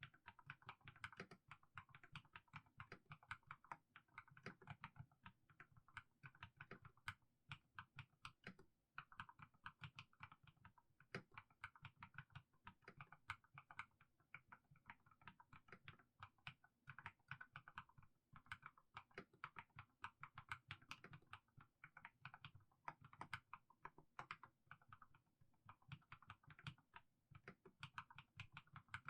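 Mechanical keyboard with fully lubed Haimu Sea Salt switches being typed on slowly. It gives a quiet, steady run of soft clacking keystrokes, several a second, with short pauses.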